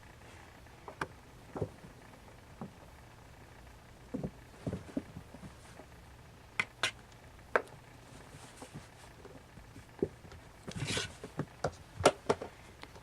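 Kittens playing: irregular light thumps, taps and scrabbling of small paws, with a short rustle and a few sharper knocks near the end.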